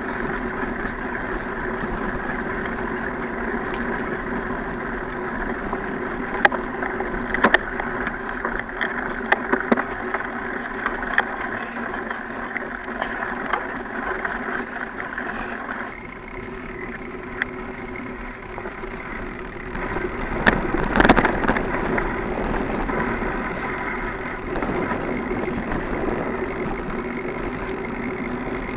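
Bicycle ridden along a dirt trail: steady rushing wind and tyre noise, with sharp knocks and rattles from the bike over bumps. The sound eases a little about halfway through, and there is a burst of louder knocks about two-thirds of the way in.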